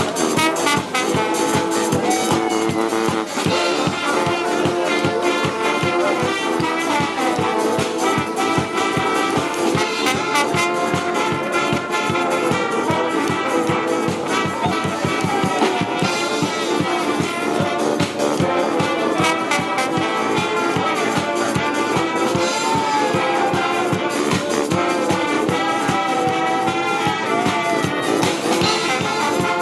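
Background music with brass and a steady beat.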